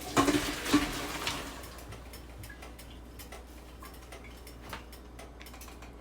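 Cookware and utensils clattering: a few sharp metallic knocks with a short ring in the first second, then faint scattered ticks and clicks.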